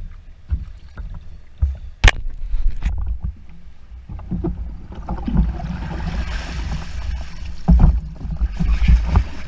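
Water sloshing and splashing around a swamped canoe, with knocks and thumps of the hull and gear against the camera mount. A single sharp knock about two seconds in is the loudest sound; from about five seconds the splashing grows louder, with heavier thumps near the end.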